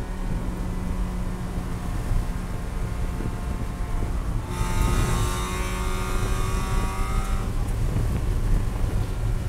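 Onboard sound of a Spec Miata race car's four-cylinder engine over a constant low road and drivetrain drone. About four and a half seconds in the engine note climbs and gets louder, holds for about three seconds, then drops back.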